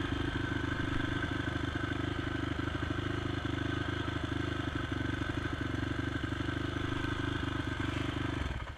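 Honda TRX450 quad's single-cylinder four-stroke engine idling steadily, with light clatter, then shutting off abruptly near the end.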